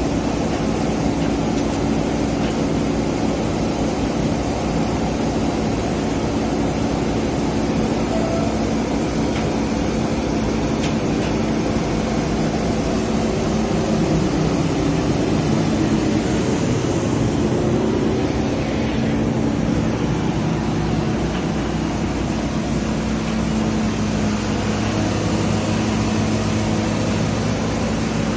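Amphibious excavator's diesel engine running steadily under work, its pitch shifting up and down around the middle.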